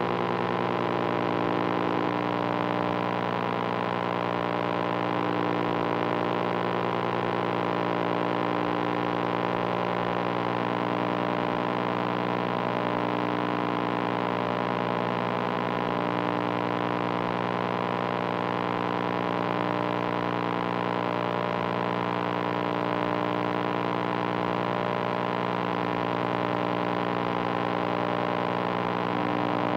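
Steady electronic noise drone from analog machines: a dense stack of sustained buzzing tones at an even level. The mix of tones shifts slightly about two seconds in and again about halfway through.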